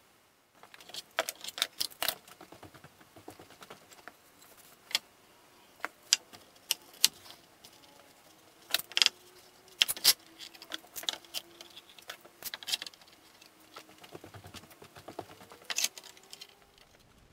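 Metal bar clamps being handled and set on a wooden frame: irregular clicks and clinks.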